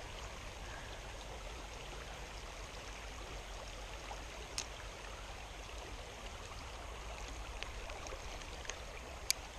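Small stream running with a steady, even rush of water. Two sharp clicks stand out, one about halfway through and one near the end, with a few fainter ticks between.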